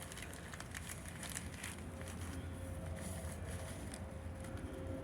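Faint crackling and rustling of a dry tinder bundle holding a hand-drill ember as it is worked toward flame: scattered sharp little clicks over a low steady rumble.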